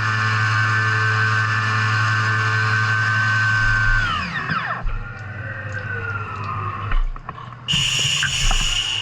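CNC mill spindle running with a steady whine, then winding down in a falling glide about four seconds in. Knocks follow as the machine changes tools, and a new high whine starts suddenly near the end.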